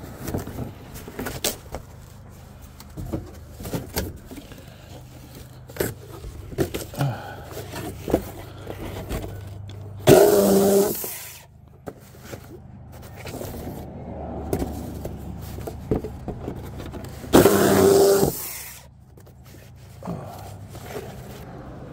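Electric saw run in two short bursts, each about a second and a half, about halfway through and again some seconds later, cutting into cardboard boxes. Between the bursts come scattered knocks and scraping.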